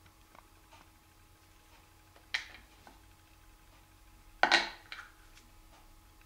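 Handling noises of close-up hand work with a glue tube, thread and a small ball: faint light ticks throughout, a sharp click a little over two seconds in, and a louder brief noisy rustle about four and a half seconds in, followed by a smaller one.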